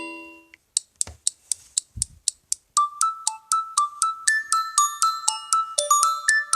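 LG G6 built-in phone tone: a previous chime fades out, then a new tone starts with a run of ticking clicks about four a second. From about three seconds in it becomes a quick, repeating mallet-like melody, with one low thump about two seconds in.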